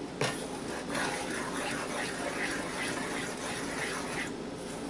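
Wet onion-tomato masala bubbling and sputtering as it cooks down in a wok, with one light knock just after the start.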